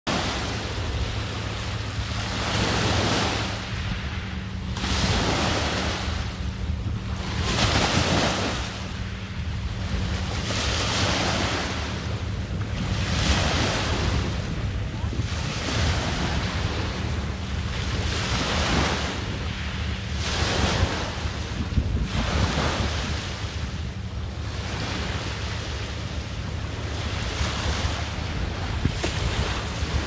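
Small waves breaking and washing up onto a pebbly beach, swelling and fading every two to three seconds. Wind buffets the microphone with a steady low rumble underneath.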